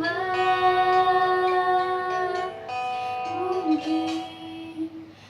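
A female voice sings a long held note with guitar accompaniment, then a shorter note that rises, fading toward the end.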